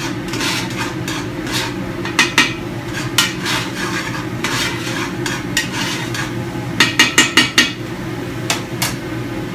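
A utensil stirring and scraping sautéing onions, carrots and garlic in a large metal stockpot, with scattered clicks and a quick run of about five knocks against the pot about seven seconds in. A steady hum, likely the kitchen's exhaust hood, runs underneath.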